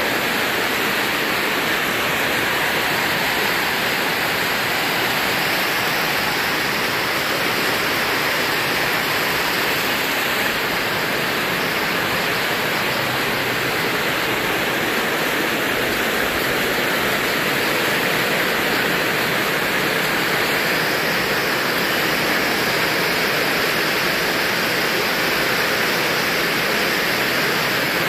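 Heavy rain: a steady, loud rush of falling and running water.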